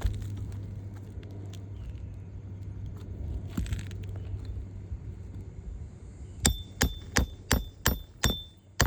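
Hammer driving a roofing nail into an asphalt shingle: seven quick, sharp strikes near the end, about three a second, each with a short metallic ring.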